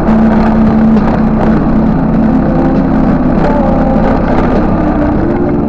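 X-PRO Fiji 200cc scooter's engine running while riding along a dirt path, its pitch shifting up and down with the throttle over a steady low rumble.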